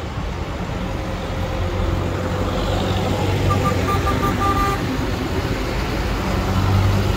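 Diesel farm tractors passing at walking pace, their engines running with a deep drone that grows louder as a tractor draws near. About halfway through, a horn sounds a quick run of about six short toots.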